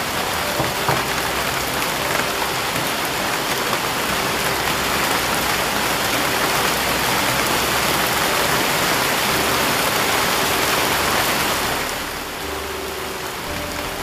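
Heavy rain falling on a river and on palm foliage, a steady dense hiss that eases a little near the end.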